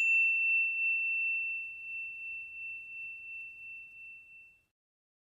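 A single high bell-like chime ringing out after being struck, fading slowly with a gentle waver until it dies away about four and a half seconds in. Its faint higher overtones vanish within the first half second.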